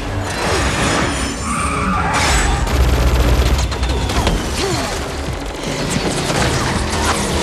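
Action-film sound mix: a muscle car's engine and skidding tyres in a road tunnel, with rapid gunfire and explosions, over a music score.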